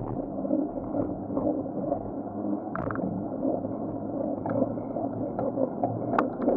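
Street traffic heard from a moving bicycle: the running engines of nearby vehicles under a steady rumble of wind on the microphone, with a couple of short clicks or rattles.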